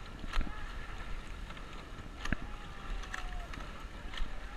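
Racing coxed eight under way: short knocks from the oars working in their oarlocks, the strongest coming about every two seconds with each stroke, over the rush of water along the hull and wind on the microphone.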